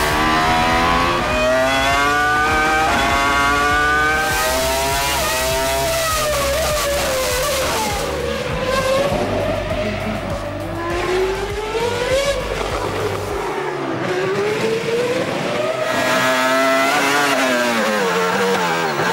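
Racing V10 engines at high revs, heard onboard, their pitch climbing and falling again and again through upshifts and downshifts. About two thirds of the way through, one car gives way to another, an early-2000s Formula One car with a 3-litre V10.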